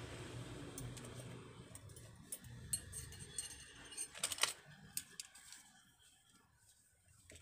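Small metal hand tools clinking and rattling as they are sorted and picked out from a workbench tool rack, with a quick run of clicks about four seconds in. A low hum sits under the first two seconds.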